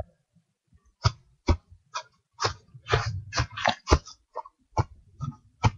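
A run of short, irregular rustles and scuffs in grass, a dozen or more, coming close together in the middle, as a hand puppet is moved through the grass next to a plastic ball.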